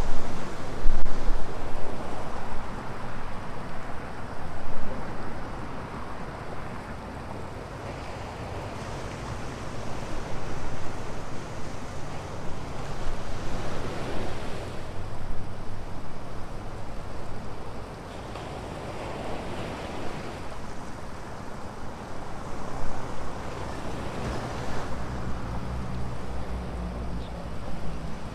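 Ocean surf breaking and washing up the beach, swelling and easing every few seconds, with wind buffeting the microphone. From about three-quarters of the way through, a low engine hum runs under the surf.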